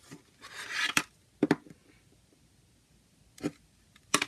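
Plastic CD jewel case handled on a table: a short rustling slide ending in a sharp click, then separate plastic knocks and clicks as the case is picked up and turned over.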